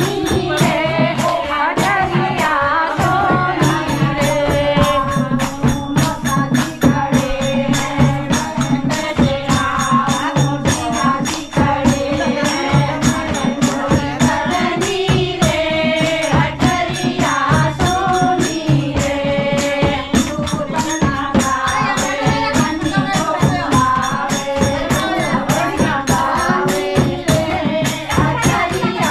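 A group of women singing a devotional folk song together in unison, keeping time with hand claps and a dhol drum in a steady rhythm.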